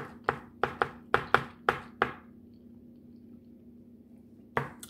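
A quick run of about eight sharp knocks over two seconds, then a single knock near the end.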